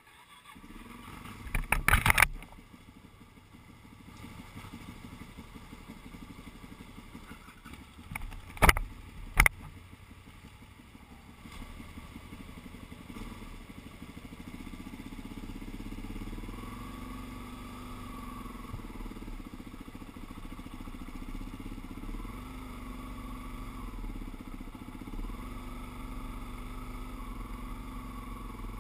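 Suzuki DR-Z400 single-cylinder motorcycle engine idling, then pulling away with its pitch stepping up and down through the gears. A louder burst comes about two seconds in, and two sharp knocks about nine seconds in.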